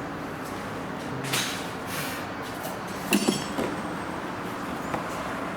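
Old air filter element being worked out of its plastic housing by hand: rustling and scraping, with a sharp clink about three seconds in.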